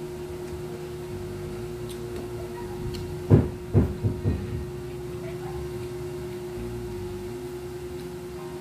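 A steady hum over a low rumble, broken by a quick run of four low thumps a little over three seconds in.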